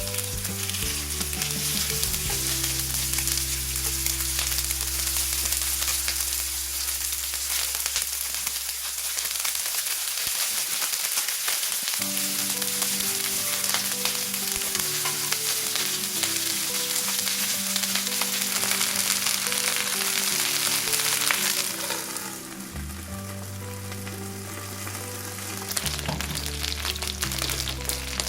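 Chicken wings pan-frying in oil, sizzling steadily. The sizzle drops away about three quarters of the way through and picks up again near the end, over background music.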